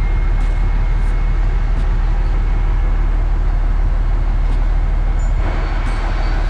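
Heavy harvest machinery running steadily: a loud, constant engine drone with a faint high whine over it.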